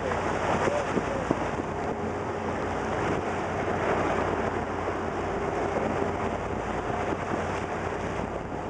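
Steady wind noise buffeting the microphone over the rushing, hissing water of a tour boat's breaking wake wave.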